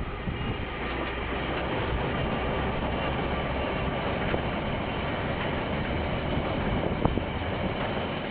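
KiwiRail train passing on the line: a steady rumble of wheels on rail that builds over the first second and then holds, with a couple of sharp clicks partway through.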